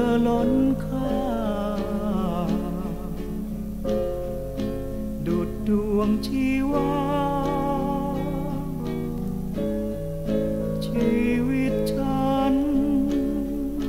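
Music from a vintage Thai pop record: a song with guitar accompaniment and a wavering melody line over held chords.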